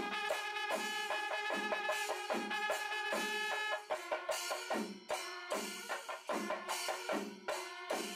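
Music: a drum rhythm under held pitched notes, with the strikes steadier at about two a second from about four seconds in.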